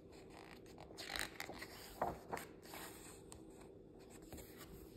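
A picture book's page being turned by hand: paper rustling and sliding, with a sharp flick about two seconds in.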